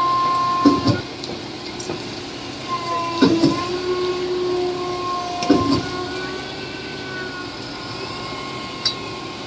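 Machinery with held metallic squealing tones that come and go, and a few sharp knocks two to three seconds apart.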